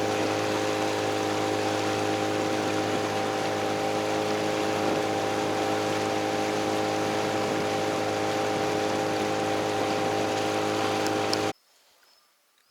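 Boat motor running at a steady speed under way, a constant hum with a steady hiss over it; it cuts off abruptly near the end, leaving near silence.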